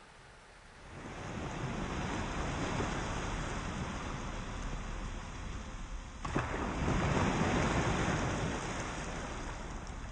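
Small sea waves breaking and washing up a sandy, pebbly beach, the surf coming in two slow swells, with a brief click about six seconds in.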